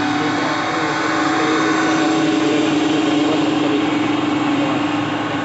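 Concrete boom pump truck's engine and hydraulics running steadily, a constant mechanical drone.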